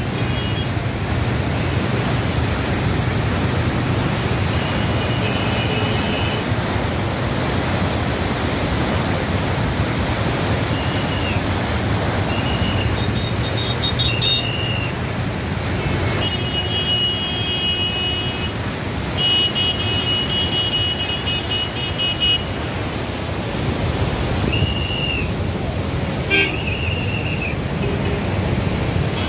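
Steady rush of flood water pouring through the barrage gates. Vehicle horns honk over it again and again: short toots, and two longer blasts of a couple of seconds each around the middle.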